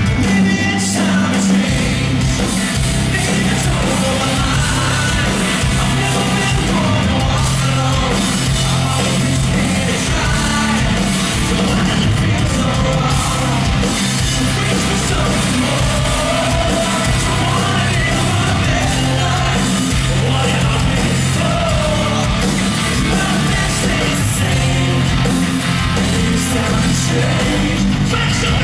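Live rock band playing loud, with singing over heavy bass, drums and guitars.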